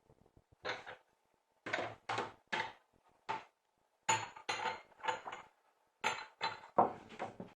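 A quick series of light knocks and clinks, about a dozen in uneven clusters, each ringing briefly, stopping abruptly at the end.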